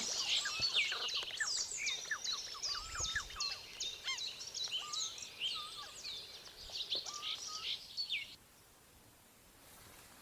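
Several songbirds chirping and singing in quick overlapping notes and trills, cutting off abruptly about eight seconds in.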